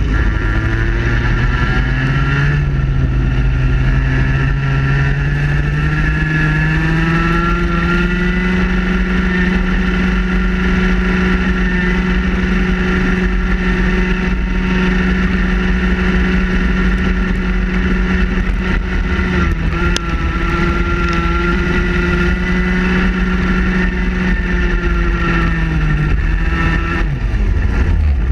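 Vortex ROK two-stroke kart engine at full race pace: the revs climb steadily for the first several seconds out of a corner, hold high and flat down the straight with a brief lift about two-thirds in, then drop away near the end as the kart slows for the next bend. Wind buffets the onboard microphone underneath.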